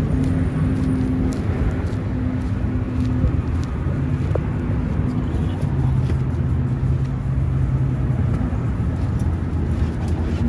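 Trailmaster Cheetah 300 EX go-kart's water-cooled, fuel-injected 300 cc engine idling steadily with a low rumble.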